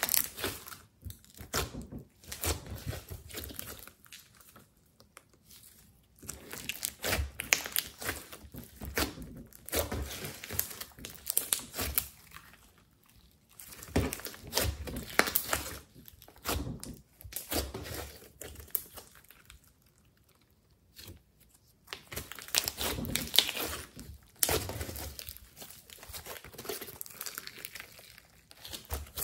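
Hands kneading and stretching a large mass of slime mixed with clay and foam, giving sticky crackling and popping in spells, with two short pauses.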